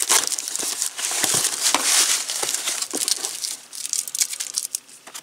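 Cardboard box flaps and packing being handled, with continuous irregular crinkling and crackling, as a boxed replacement fan motor is unpacked.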